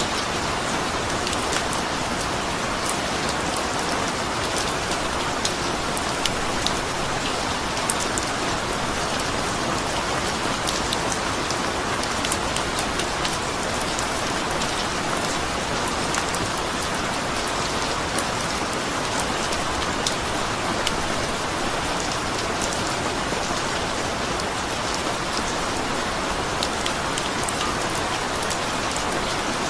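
Steady rain falling, an even hiss with many individual drops ticking on a hard surface.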